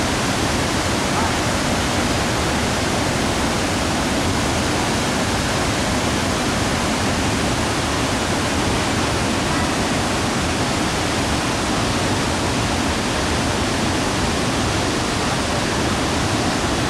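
Steady rushing roar of a large river waterfall: broad falls of white water pouring over rock ledges into the river, an even, unbroken noise.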